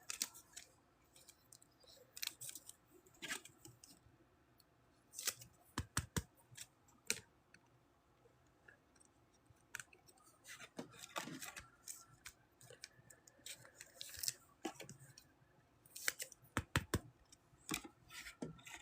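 Faint handling of trading cards and their packaging: scattered light clicks, taps and scrapes, some in quick clusters, with quiet gaps between.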